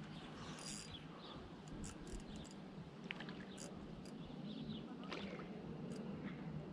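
Quiet lakeside outdoor ambience: a steady low background hum with faint, scattered bird chirps and a few small clicks.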